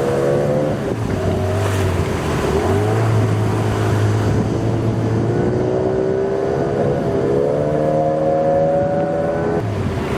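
Small fishing boat's engine running, its pitch rising about a second in and again around seven seconds in as the throttle changes, then dropping near the end, over a low steady hum and the rush of water and wind.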